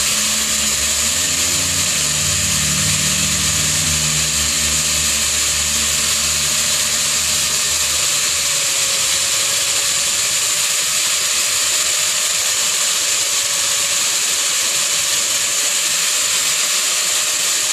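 Electric angle grinder running steadily at full speed with a high whine, grinding PVC pipe. A lower rumble underneath dies away about eight seconds in.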